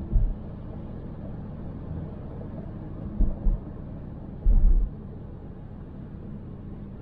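Steady road and engine noise of a moving car heard through a dash camera, with several short low thumps: one just after the start, two around three seconds in, and a longer one around four and a half seconds in.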